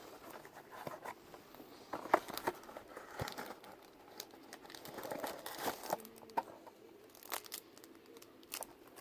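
A cardboard trading-card hanger box being torn open by hand at its glued flaps: faint, intermittent tearing and crinkling with scattered sharp clicks.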